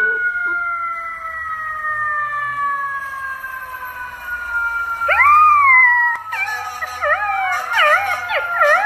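A siren wails on one long, slowly falling note. About five seconds in, a golden retriever puppy starts howling along, and its high, wavering howls overlap the siren.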